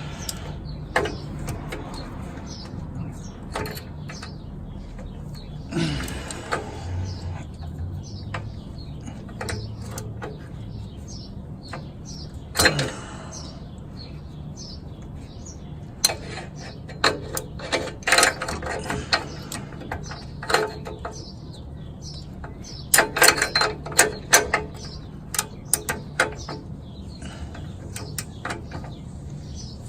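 Hand tools working in a car's engine bay: scattered metallic clicks and clinks, with a quick run of ratchet clicks about 23 seconds in, over a low steady hum.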